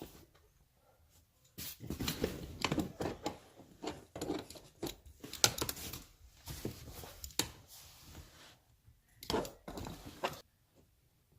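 Irregular rustling, scraping and scuffing from hands and tools working at the bolts under a car's rear seat, with a sharp click about halfway through.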